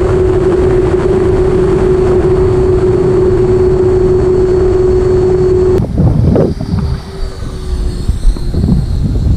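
The 80mm electric ducted fan of an FMS Futura RC jet whines at a steady pitch over loud wind rush on the onboard camera. About six seconds in, the fan whine cuts off suddenly as the throttle is closed. What remains is gusty wind buffeting and a fainter fan tone that slowly falls as it spins down.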